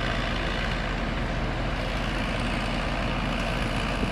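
Heavy engine of a tree-removal grapple crane running steadily at a low, even speed.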